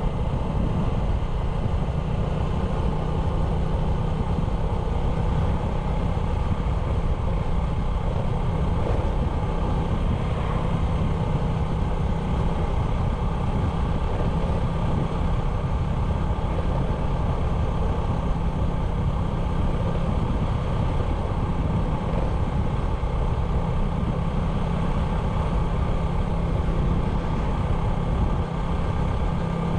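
97cc motorbike engine running steadily while riding, a constant low drone with rushing noise over it, with no change in speed.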